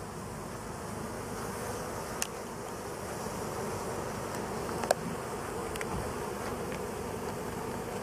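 Honey bees buzzing steadily over the open frames of a hive. A short sharp click sounds about two seconds in and a louder one about five seconds in.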